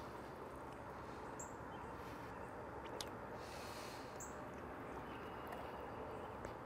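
Quiet outdoor background with a steady low hiss and a faint high chirp every two to three seconds.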